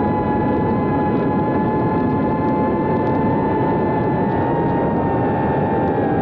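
Brushless motors and ducted three-inch propellers of a GEPRC Cinelog 30 FPV drone in flight, heard through the onboard camera's microphone: a steady high whine over a rush of prop wash, the pitch easing down slightly near the end.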